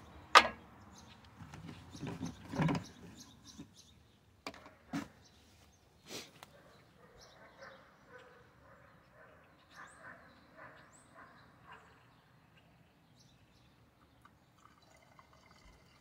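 Knocks and clunks from handling a red plastic gas can at a lawnmower's fuel tank. The loudest is a sharp knock about half a second in, followed by several more over the next six seconds, then only faint taps.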